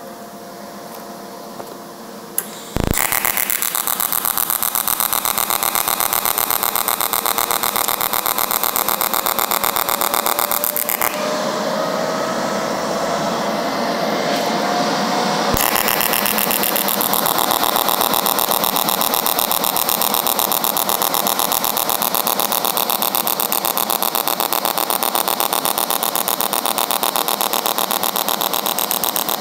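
TIG welding arc from an HTP Independence 210 AC/DC on aluminum in AC-DC mix mode with a square wave, striking about three seconds in and then buzzing steadily. It pulses in a fast rhythm: three AC cycles, then quiet for a split second during the DC cycle, over and over.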